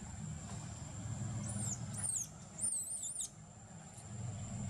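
Infant long-tailed macaque crying: a quick run of five or so high, arching squeals starting about a second and a half in.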